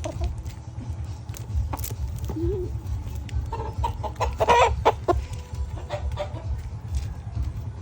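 Chickens clucking in short, scattered calls, loudest about four and a half seconds in, over a steady low rumble.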